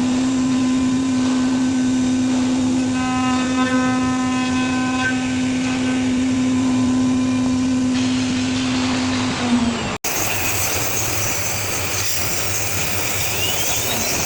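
CNC router spindle running with a steady whine that dips about nine and a half seconds in. After an abrupt cut, a steady rushing machine noise follows.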